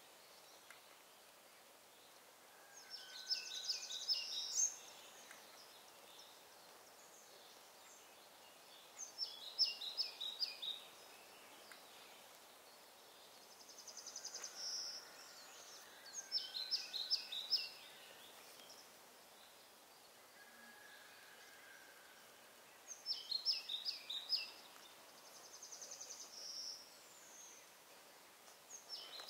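A songbird singing short phrases of rapid high notes, repeated four times at intervals of about six to seven seconds, with a softer buzzy trill between some of them. Faint steady outdoor background noise fills the gaps.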